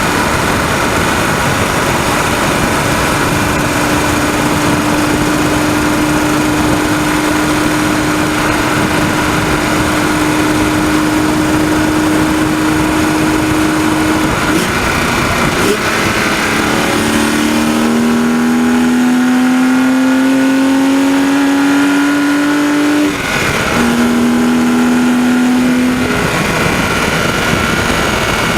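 BMW 130i's 3.0-litre straight-six heard from the engine bay at Autobahn speed, running steadily under loud road and wind noise. Past the middle it revs up with a rising pitch, drops sharply once, then climbs again before settling. A rattling, ticking noise rides on the engine; the owner cannot find its cause, and it is absent at idle.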